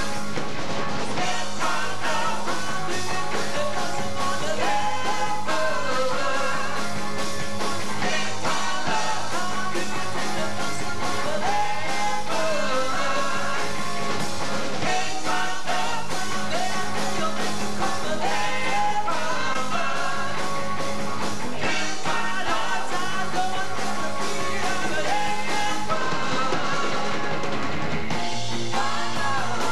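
Rock band playing live: electric guitar, electric bass, keyboard and drums, with a male voice singing lead.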